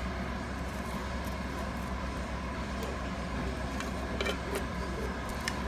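Steady low hum with a few faint clicks and crackles as a silicone spatula presses sticky marshmallow cereal-treat mixture into a foil pan lined with wax paper.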